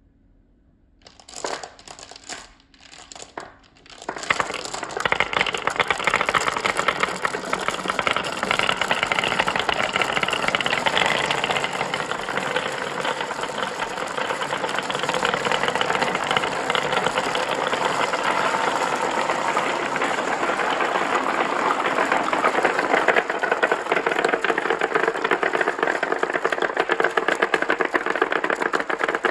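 Many marbles rolling and clattering down a marble run: a few scattered clacks at first, then from about four seconds in a dense, continuous rattle of marbles knocking against each other and the track.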